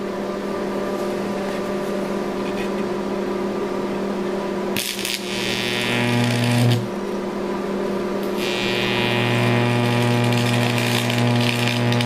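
Old arc welder humming steadily; about five seconds in, an electric arc strikes between carbon gouging rods, buzzing and crackling as it melts the aluminium-oxide and chromium mix in the crucible. The arc drops out briefly near the middle and is struck again about two seconds later.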